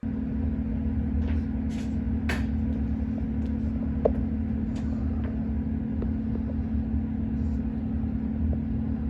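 A steady low rumble with a constant hum, starting abruptly, with a few faint scattered clicks over it.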